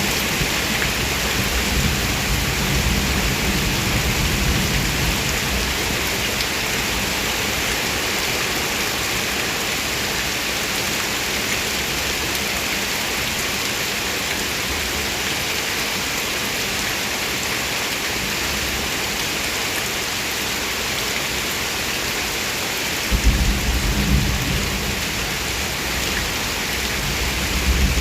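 Very heavy rain pouring down in a steady, dense hiss. A deep low rumble comes in suddenly about five seconds before the end.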